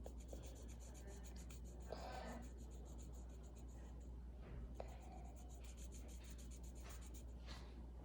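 Faint, repeated scratchy strokes of a drawing tool rubbing on paper while a picture is coloured in, over a steady low electrical hum.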